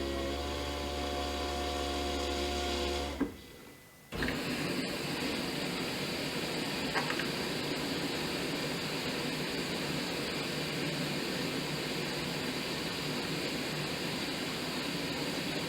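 Dishwasher running: a steady motor hum cuts off about three seconds in. After about a second's lull, a steady rushing wash noise starts up, with a faint click a few seconds later.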